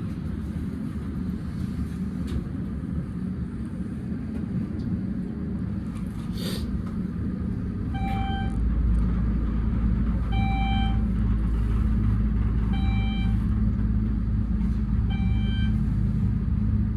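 Scenic elevator car running with a steady low rumble that grows louder about halfway through, while a short electronic beep sounds about every two and a half seconds, five times in all.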